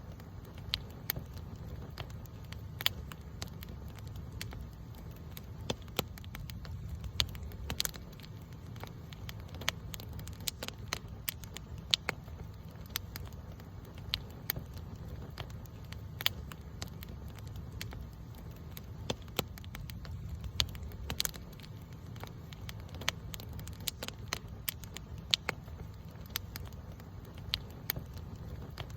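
Campfire burning, with sharp irregular crackles and pops, several a second, over a steady low rumble of flame.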